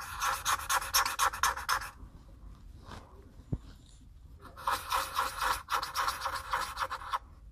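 Black Sharpie-type marker scribbling back and forth on paper, colouring in a small circle. Two spells of quick scratchy strokes, the second starting a little past halfway.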